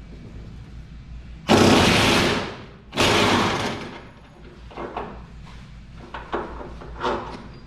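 Impact wrench run in two bursts of about a second each, undoing a truck cab mount bolt, followed by a few light metallic knocks.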